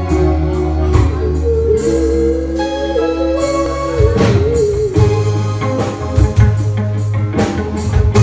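Live band playing an instrumental intro: drum kit, bass and electric guitar, with a held lead melody that wavers in pitch from about one to five seconds in over regular drum hits.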